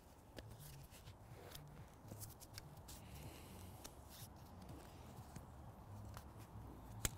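Faint rustling of a fabric grass bag and light clicks as its plastic clips are pushed onto the grass box's metal frame, with a sharper click near the end.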